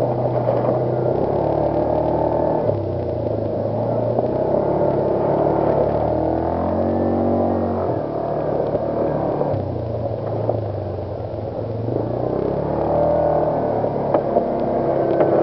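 Off-road vehicle's engine running while driving, its note dropping and climbing several times as the throttle and speed change.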